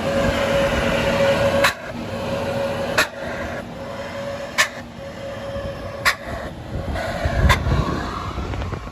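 Heavy vehicle running with a steady drone and a steady tone, broken by sharp clicks about every one and a half seconds, with a louder low rumble near the end.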